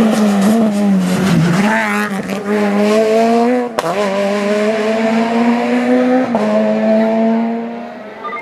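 Peugeot 208 rally car's engine slowing for a bend, then accelerating hard, its pitch climbing and dropping at two quick upshifts, about four and six seconds in. The sound fades as the car draws away near the end.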